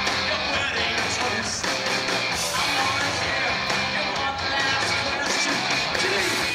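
Rock band playing live: electric guitar and drums, loud and continuous.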